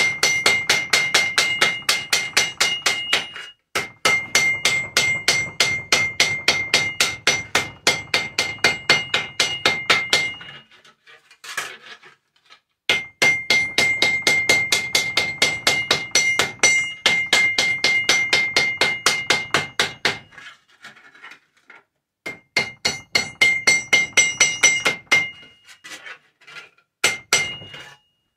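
Hammer beating tin cans flat, metal on metal: quick, even strikes about four a second, each with a bright metallic ring, in long runs broken by two short pauses and a few scattered blows near the end.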